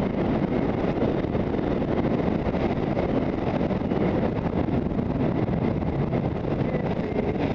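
Wind rushing over the microphone of a skier's body-worn camera on a downhill run, mixed with the steady slide of skis over snow.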